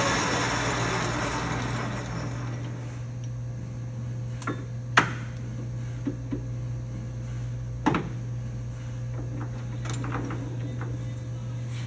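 LeBlond Regal engine lathe's headstock coasting down and falling quiet over the first couple of seconds. A steady low hum and a few sharp metallic clunks follow as the four-jaw chuck is rocked by hand and the speed range is changed.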